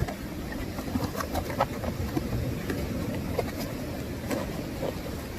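Cardboard and plastic packaging being handled and opened, giving scattered light clicks and taps over a steady low rumble.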